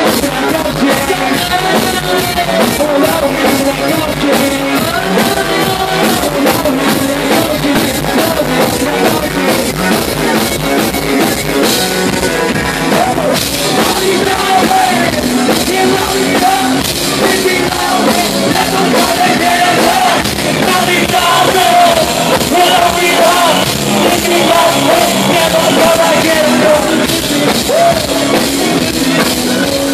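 Live rock band playing loudly, with electric guitar, drums and a sung lead vocal.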